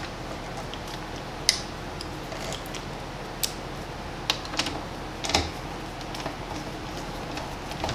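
A handful of irregular small clicks and taps from a screwdriver and screw on a metal dome plate as a screw is started into its hole, the loudest about five seconds in. A low steady hum runs underneath.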